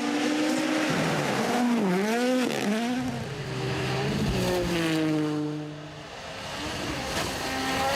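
WRC rally car engines at full throttle on a gravel stage. The revs dip and climb twice about two seconds in as a car lifts and shifts, the pitch falls as a car goes past near the middle, and another car's engine rises near the end.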